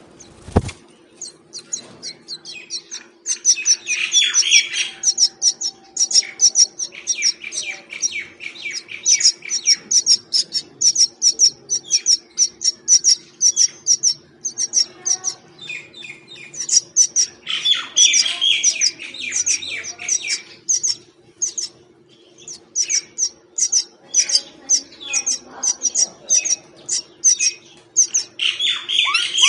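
Mynas chirping in fast, near-continuous runs of short high chirps, several a second, with a few louder, denser bursts. A faint steady low hum runs underneath, and there is a single thump at the very start.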